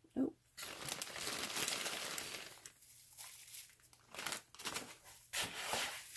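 Zip-top plastic bag crinkling and rustling as dried rose petals are shaken out of it into a bowl of salt. The crinkling is densest for the first couple of seconds, then turns into scattered short rustles.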